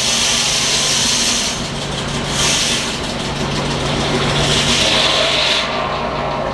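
Sawmill machinery running: a steady low engine hum driving the mill, with two stretches of high hissing noise about two and four and a half seconds in.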